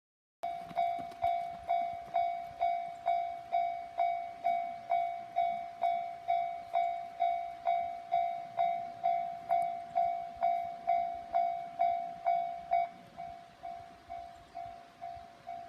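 Japanese level crossing alarm starts suddenly and rings a steady, repeating bell-like 'kan-kan' tone, about two strikes a second, warning of an approaching train. About 13 seconds in it drops to a noticeably quieter level and keeps ringing.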